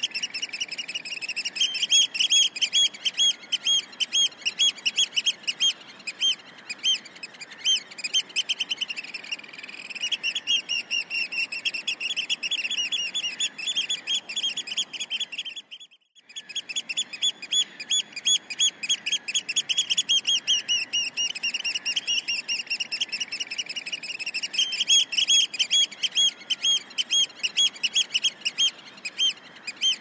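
Mandarin ducks calling: a fast, unbroken run of short, high, thin chirps, many each second, at a fairly steady pitch, with a brief gap about halfway through.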